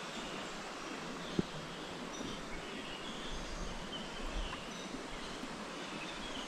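Tropical rainforest ambience: a steady noise bed with short, high bird chirps scattered through it, and a single sharp click about a second and a half in.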